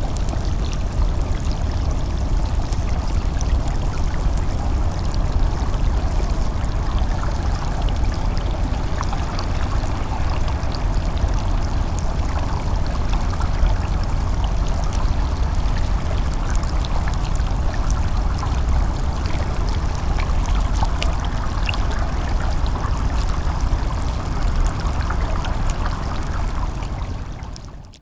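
Continuous rushing water with a deep low rumble and scattered fine crackles, steady throughout, cutting off abruptly at the end.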